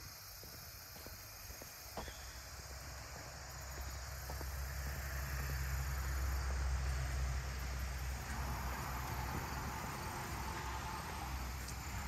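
A motor vehicle passing, its low engine rumble swelling to a peak about seven seconds in and then easing off, over a steady chirring of insects.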